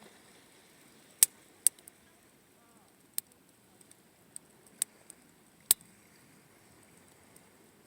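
Wood campfire crackling: irregular sharp pops, the loudest a little after a second in, just after one and a half seconds, and just before six seconds, over a faint low hiss.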